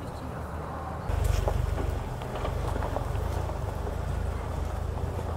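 UAZ Patriot SUV engine running off-road, a steady low rumble that grows louder about a second in.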